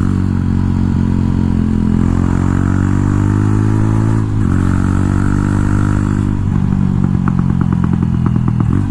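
Jawa Perak's single-cylinder engine running through a loud aftermarket exhaust, holding steady revs with a short break about four seconds in. About six seconds in the revs drop and the exhaust turns to an uneven low-rpm beat.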